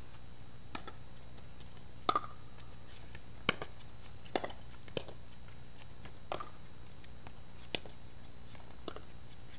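Pickleball rally: a string of sharp pops as paddles strike the hollow plastic ball and it bounces on the hard court, about one a second at uneven spacing, with a quick double pop about two seconds in.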